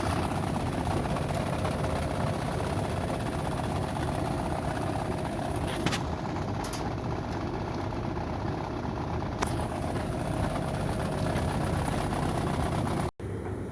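A ventilation fan unit (caisson) running with a steady mechanical rumble and a faint whining tone that fades out past the middle, with a few sharp clicks. This is the abnormal noise that the technician puts down to a worn bearing.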